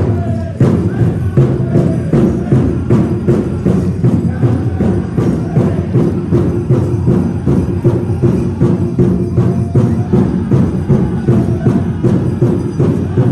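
Powwow drum struck in a fast, steady, even beat, about three strokes a second, with singers' voices held over it.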